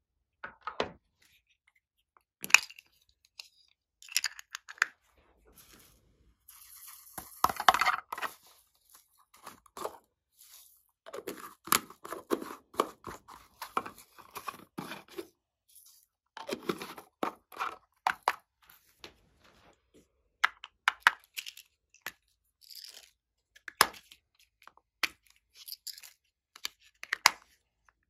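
Glossy slime being squished, stretched and mixed by hand: irregular sticky crackles and pops with sharp clicks, in longer bursts at times.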